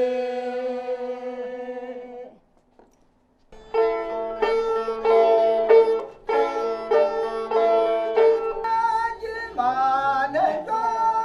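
A held chord of several singing voices fades out. After about a second of silence, a plucked lute starts a quick, rhythmic folk tune, and singing joins it near the end.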